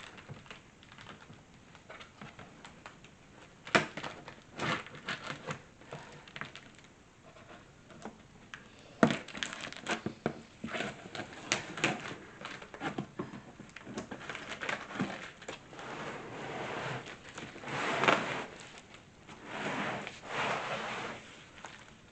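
A large cardboard box being worked open by hand: cardboard and packing material scraping, rustling and crinkling, with a few sharp knocks.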